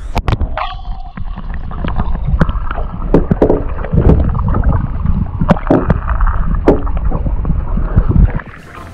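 Water gurgling and sloshing, heard muffled through a camera held underwater, with scattered knocks against the camera and the boat hull, as a big pike is let go by hand. The sound turns clearer and brighter near the end as the camera comes out of the water.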